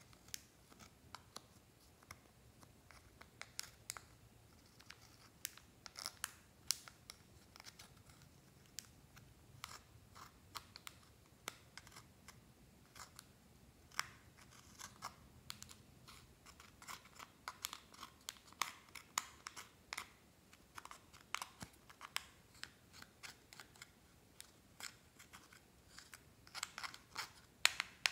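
Metal tweezers scraping and breaking up pressed eyeshadow and blush powder in a plastic makeup compact. The sound is irregular small clicks and crunchy scratches as the powder crumbles and the tips knock against the pans.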